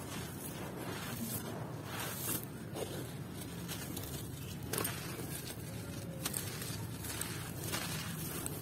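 Dry sand-cement chunks crushed and crumbled by hand: gritty crunching and the rustle of loose sand and grit pouring through the fingers, coming in repeated handfuls, with a few sharp crunches as pieces break.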